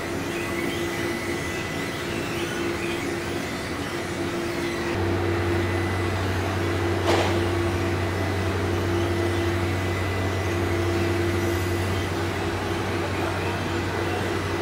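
Steady hum and rushing noise of electroplating-line machinery, with a deeper hum coming in about five seconds in and a single sharp click about seven seconds in.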